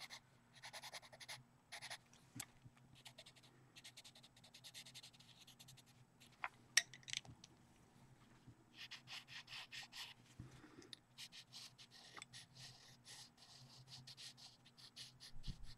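Pastel pencil scratching on paper in runs of short, quick strokes, faint, with one sharp click about seven seconds in.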